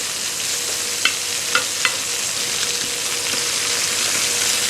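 Chicken pieces sizzling steadily as they brown in a hot pan, with three short knocks about one to two seconds in.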